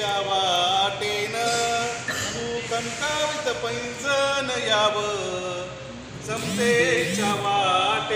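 Men's voices singing a Marathi song unaccompanied, with long held notes that bend and waver.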